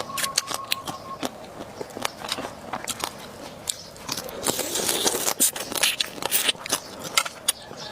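Close-miked eating: irregular wet crunching and crackling bites and chews of seafood and vegetables.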